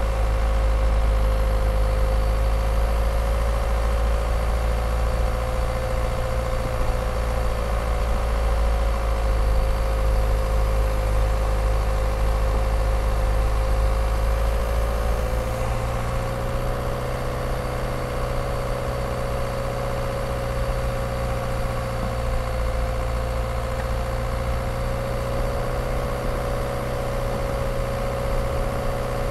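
Skoda Octavia 1.9 TDI's four-cylinder turbodiesel engine running steadily at low load as the car drives, over a low road rumble. The sound shifts slightly about halfway through and then runs a little quieter.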